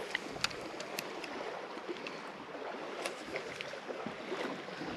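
Steady outdoor hiss of wind and water by a boat, with a few scattered small clicks and ticks as a spinning reel is handled and cranked.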